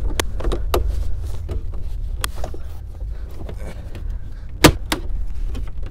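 Plastic pry tool being worked along a pickup's plastic dashboard trim: a string of small clicks and scrapes, with one sharp snap a little over four and a half seconds in as a retaining clip pops loose, over a low steady hum.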